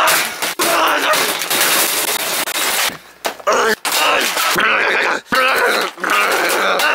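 A person's voice talking and exclaiming loudly, with a few short pauses.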